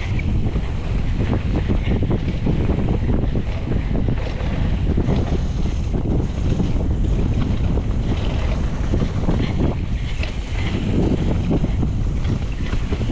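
Wind buffeting the camera's microphone during a fast mountain-bike descent, mixed with the steady rumble of knobby tyres on packed dirt and the rapid chatter and rattle of the bike over the trail surface.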